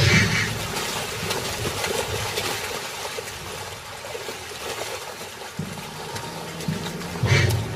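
River water splashing and churning as crocodiles thrash while seizing gazelles crossing the river.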